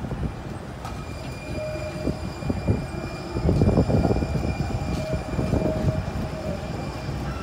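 Siemens S200 SF light rail train running past at street level: the rumble of its wheels on the rails, loudest about halfway through, with a steady high whine over it.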